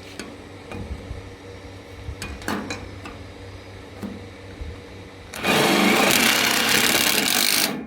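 A few light knocks, then a power drill runs in one loud burst of about two and a half seconds that cuts off abruptly.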